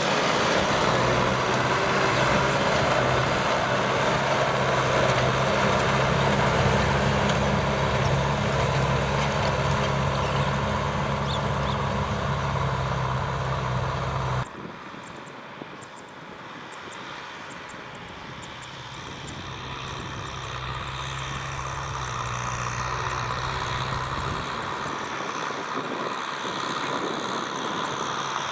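Kubota M6040SU tractor's diesel engine running steadily as it works the field. About halfway through the sound drops suddenly to a much quieter engine sound that slowly grows louder again.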